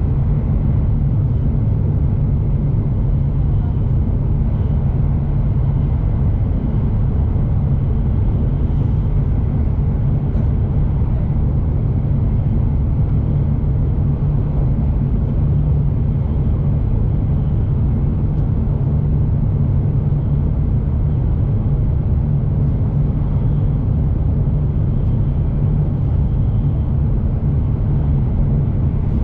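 Shinkansen bullet train running at speed, heard from inside the passenger cabin: a steady low rumble that does not change.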